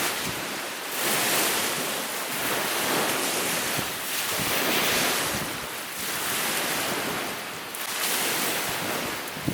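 Strong wind and lake waves washing against the shore, swelling and easing every couple of seconds, with one sharp click at the very end.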